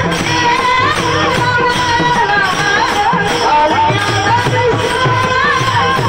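Varkari devotional singing: a man's high voice sings a flowing, ornamented alap over a steady drone, with rhythmic percussion underneath.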